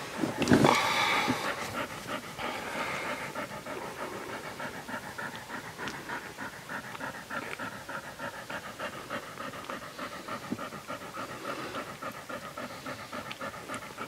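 Siberian Husky–Alaskan Malamute hybrid mother panting fast and steadily while whelping, with one louder sound about half a second in.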